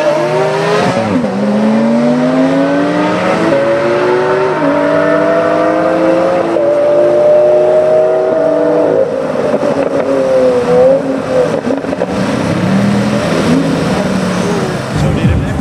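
Lamborghini Aventador S's 6.5-litre V12 accelerating hard, its pitch climbing and then dropping at each of several quick upshifts over the first nine seconds or so. After that the engine note falls and wavers as the car comes off full throttle. Near the end a fresh engine note starts to rise.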